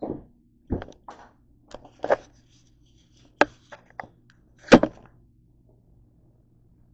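Handling noise on a kitchen countertop: a string of irregular knocks and clacks as the camera and small objects are moved and set down, the loudest about two thirds of the way through. A faint steady low hum runs underneath.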